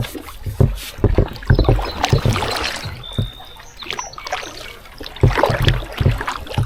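Kayak paddling: the paddle blades dipping and splashing through the water, with irregular low thumps.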